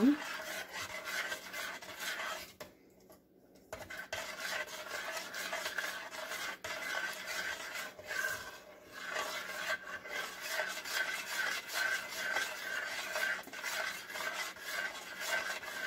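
A spoon scraping and stirring thick, hot date-roll candy around a stainless steel pot, folding in chopped dates and candied cherries. The scraping goes in repeated strokes, with a short pause about three seconds in.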